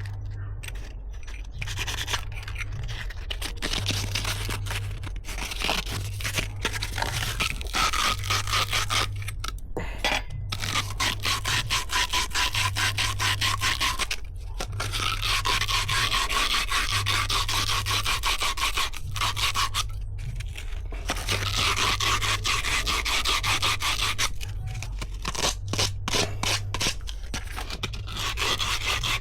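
An abrasive being rubbed rapidly back and forth, a fast rhythmic scrubbing that goes on in long stretches broken by short pauses.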